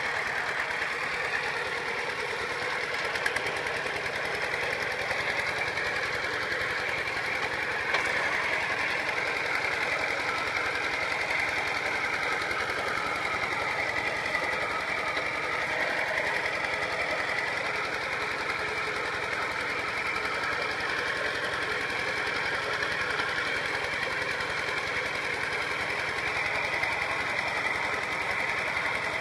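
Kubota RT120 single-cylinder diesel engine on a two-wheel walking tractor running steadily while the tractor works through rice-paddy mud, with one brief sharp knock about eight seconds in.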